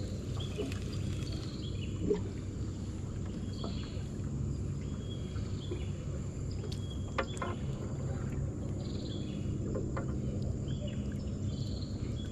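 Riverside ambience: birds chirping in short repeated calls over a steady high insect drone and a low steady rumble, with a few small clicks.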